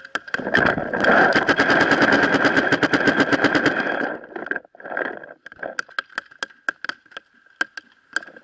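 Paintball marker firing a rapid stream of shots, about ten a second, for roughly three and a half seconds, then scattered single pops. A faint steady high tone runs underneath.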